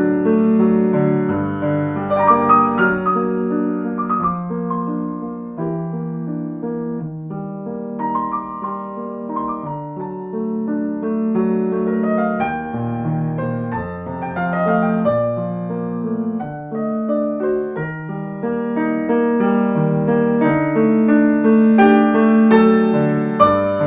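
Solo piano playing slow, gentle relaxation music, notes sustained and overlapping.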